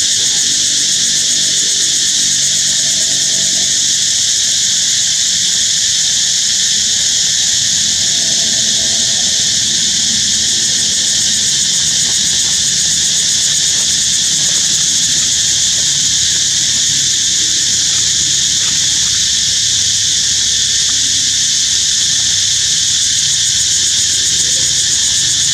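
A loud, steady chorus of insects: a dense, high-pitched drone that does not let up.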